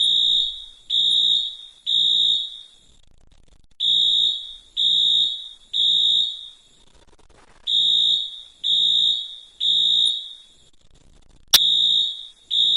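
Fire alarm sounding the temporal-three evacuation signal: three high-pitched beeps about a second apart, then a pause of about a second and a half, repeating. A sharp click comes just before the last set of beeps.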